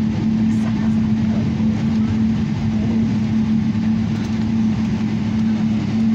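Airliner cabin noise while taxiing after landing: the aircraft's engines running at idle as a steady, loud hum with a constant low tone underneath.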